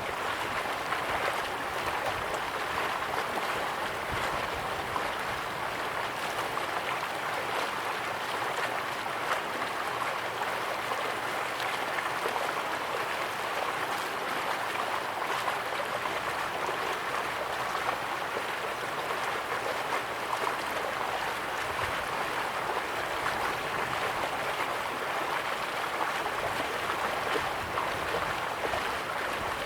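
Flowing stream water rushing steadily and evenly, with no single splash standing out.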